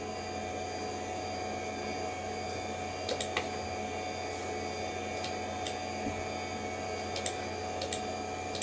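Computer mouse button clicking while the installer is opened and its menus are worked: a quick double click about three seconds in, then a few single clicks later. Under the clicks the running computer gives a steady hum.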